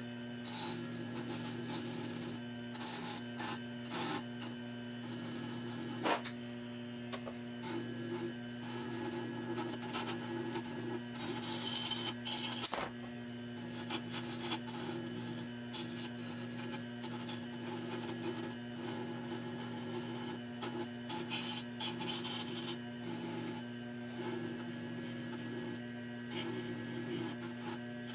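Benchtop woodworking lathe running steadily with a disc wheel on its spindle while small toy-truck parts are pressed against the spinning wheel, giving an uneven scraping rub over the motor's steady hum. There are a couple of sharp clicks, about six and thirteen seconds in.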